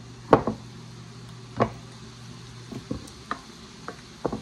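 Wooden spoon stirring and spreading a thick meat sauce in a ceramic baking dish, knocking and scraping against the dish a few times, the first knock the loudest. A low steady hum underneath stops about two-thirds of the way through.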